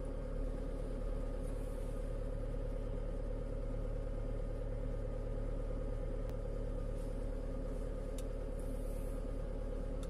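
A hydraulic excavator's diesel engine running steadily with the throttle raised, heard from inside the cab. Two faint clicks come in the second half.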